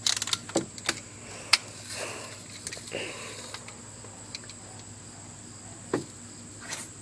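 Scattered sharp clicks and small knocks from BB guns being handled, cocked and fired: a quick cluster at the start, a single sharp click about a second and a half in, and a softer thump near the end, over a faint steady high-pitched tone.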